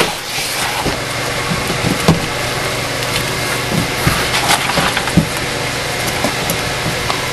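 Cardboard shipping box being handled: scattered light knocks and a brief scrape of cardboard, over a steady background hum.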